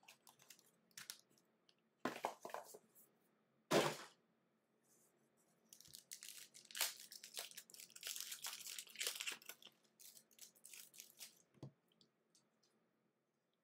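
A foil trading-card pack being torn open and crinkled by hand, after a few rustles and a sharp knock about four seconds in.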